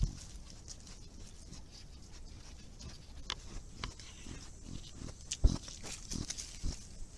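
Collared peccaries foraging in leaf litter: scattered rustles, clicks and knocks over a steady high hiss. The loudest knock comes about five and a half seconds in.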